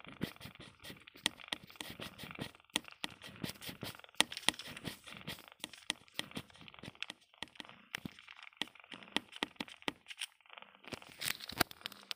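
Rustling and crackling with many small irregular clicks, from the cardboard box and cloth being handled or moved against, a little louder near the end.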